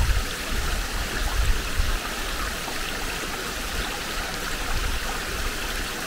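Steady rushing hiss of a mountain stream or waterfall nearby, with irregular low thumps underneath.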